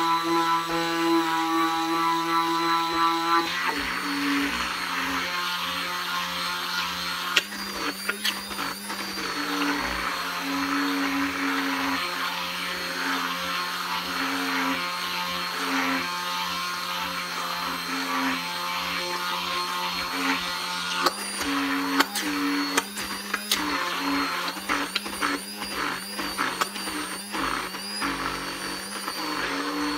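Handheld immersion blender motor running steadily, its blade churning egg and sunflower oil into a thick mayonnaise in a tall plastic container. There are a few sharp knocks about a quarter of the way through and again about three quarters of the way through.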